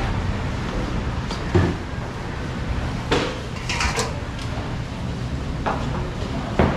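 Scattered sharp knocks and clacks of plastic fruit trays and utensils being handled on a steel counter, over a steady background hum.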